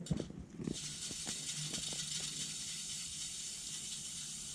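A few light knocks, then a steady high hiss that starts abruptly under a second in and keeps going.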